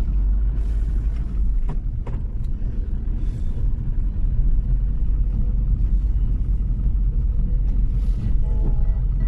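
Car interior while driving in slow city traffic: a steady low engine and road rumble, with two faint clicks about two seconds in and a brief tone near the end.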